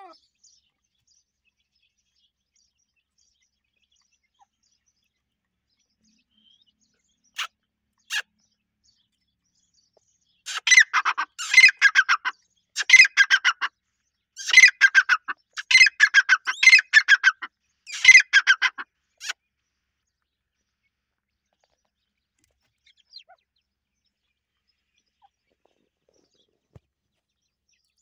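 Teetar (francolin) calling: two short notes, then about six loud bursts of rapid repeated clucking notes over some nine seconds, each burst about a second long.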